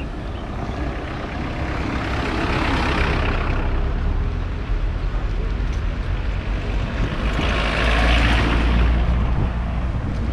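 Street traffic: motor vehicles pass close by in two swells, one about two to three seconds in and a louder one near the end, over a steady low rumble.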